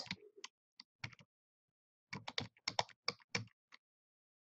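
Computer keyboard being typed on: a few scattered keystrokes, then a quick run of about seven keys past the middle.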